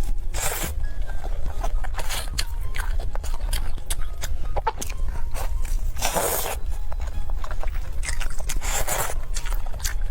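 Close-up eating of spicy chicken: biting and chewing, with many short crunches, clicks and wet bursts over a steady low hum.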